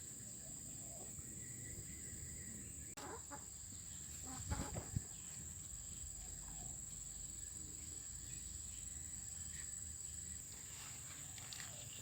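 Chickens clucking in a rural yard, over a steady high-pitched whine in the background, with a few short knocks about four and a half seconds in.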